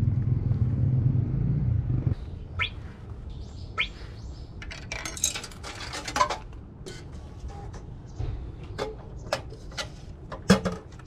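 Honda Little Cub's small single-cylinder four-stroke engine idling with a low steady rumble, then cut off suddenly about two seconds in. After that come a few short bird chirps and scattered sharp metallic clicks and clinks.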